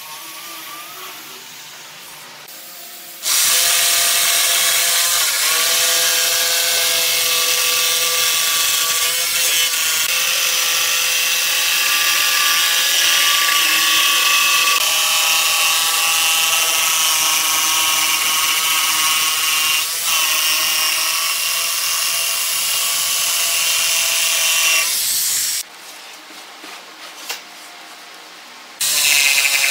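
Corded jigsaw cutting a curve through a thick pine tabletop. It starts abruptly a few seconds in and runs steadily with a whining motor for about twenty seconds, then stops. A small click comes during the pause, and the saw starts cutting again near the end.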